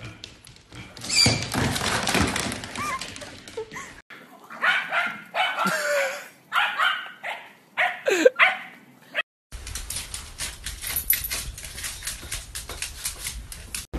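A dog barking and whining in short bursts, with a couple of pitched whines that slide up and down, loudest in the middle of the stretch.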